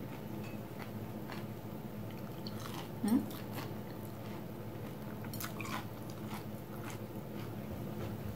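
Close-up eating of crispy breaded fried mozzarella sticks: scattered crunches and chewing, over a steady low hum. A short, louder sound rising in pitch comes about three seconds in.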